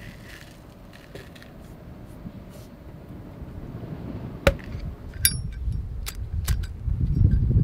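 Chrome flip-top petrol lighter clicking open with a ringing metallic clink, its flint wheel struck several times in a burst of sharp clicks, to light a fire-starter cube. Wind buffets the microphone, rising near the end.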